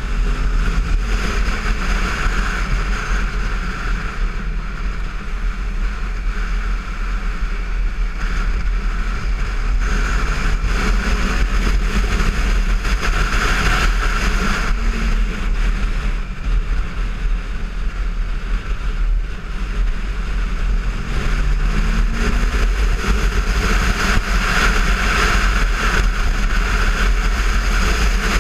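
Heavy wind rush over the microphone of a camera on a moving motorcycle, with the Kawasaki Versys 650's parallel-twin engine running underneath, its pitch rising and falling several times with the throttle.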